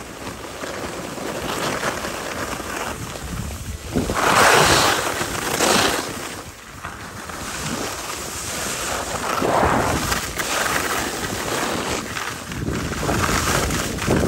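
Wind rushing over the microphone, a loud rushing hiss that swells strongly about four seconds in, eases, and builds again near ten seconds.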